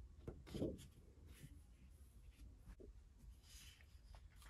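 Near silence with faint rustling and brief soft handling sounds from large sheets of patterned scrapbook paper being turned over and laid down.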